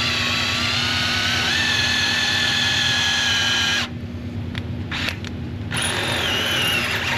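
Power drill boring a 1/4 inch pilot hole in steel with cutting fluid sprayed on the bit, a steady high whine. It stops a little over halfway through and starts again about two seconds later.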